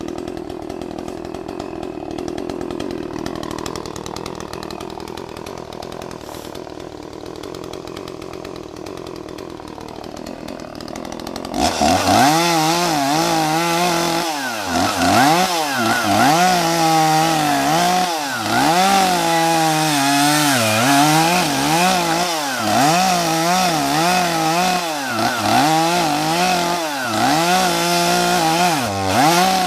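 Gas chainsaw running at low revs, then throttled up sharply about twelve seconds in. It then runs at high revs that repeatedly sag and recover every second or two as it cuts into wood.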